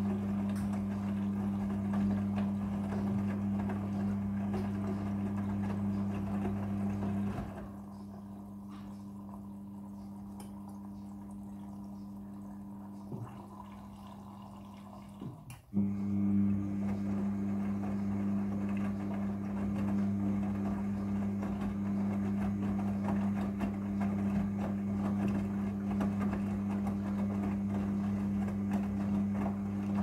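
An 8 kg Midea front-loading washing machine runs a wash cycle, its drum motor humming steadily while wet laundry sloshes and tumbles. About seven seconds in the hum drops away, leaving quieter sloshing, and it comes back in abruptly just past halfway.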